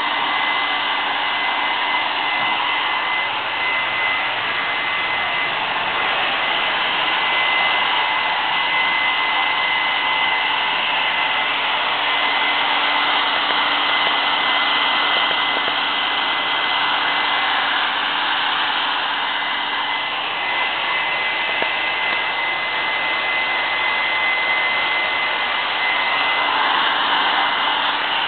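Handheld hair dryer running steadily, blowing air onto a dog's coat during grooming, with a thin steady whine over the rush of air.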